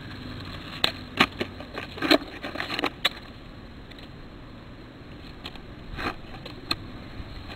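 Freestyle skateboarding on asphalt: a scattering of sharp clacks and knocks as the deck, tail and wheels hit the ground during truckstands and board flips, over a low rolling noise.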